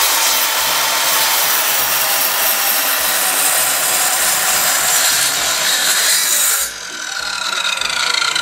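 PA SMS-190T electric slide miter saw (sliding circular saw) running and cutting through a thick wooden deck board with a loud, steady whine. About two-thirds of the way in the sound drops suddenly, and a falling whine follows as the blade winds down.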